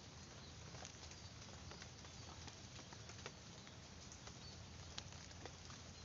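Faint rustling of grass and leaves with scattered light clicks, as hands work low in the undergrowth.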